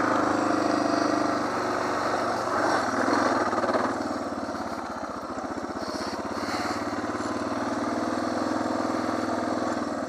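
Suzuki DR650SE's single-cylinder four-stroke engine running as the motorcycle is ridden, pulling harder for the first few seconds, easing off around the middle, then holding steady.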